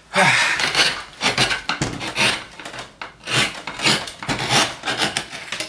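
Hand gouge cutting into a plywood woodcut block: a series of short scraping strokes, about one or two a second, as wood is carved away.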